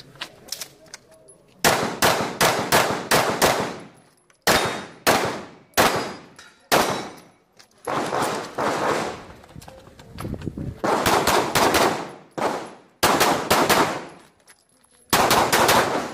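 Rapid pistol fire from a CZ 75 Shadow 9 mm pistol during a timed IPSC stage. The shots come in quick pairs and longer strings, with short pauses between them. Each shot rings out briefly.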